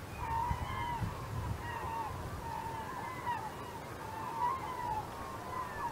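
A large flock of birds calling without a break, many short overlapping calls, over a low rumble.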